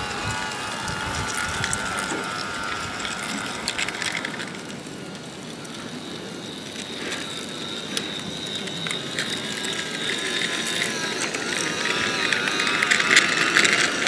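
Small garden-railway model locomotive running along the track: a wavering gear whine with sharp clicks of the wheels over the rails, fading a little and then growing louder near the end as the train draws close.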